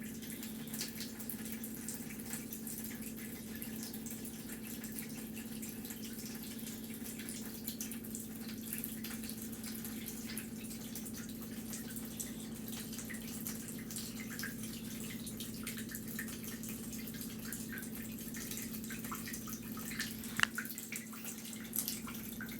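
A thin stream of water running from a tap into a sink, with many small irregular drips and splashes over a steady low hum. A few louder ticks come near the end.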